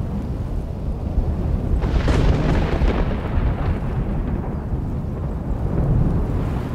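Thunder: a sharp crack about two seconds in that rolls away over the next couple of seconds, over a steady low rumble, with a deeper rumble swelling again near the end.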